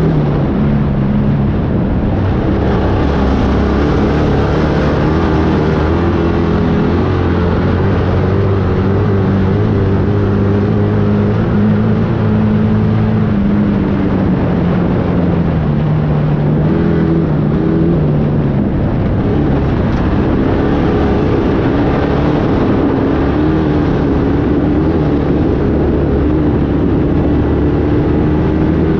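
A motor vehicle's engine running continuously under load, its pitch drifting slowly up and down, over a steady rushing noise.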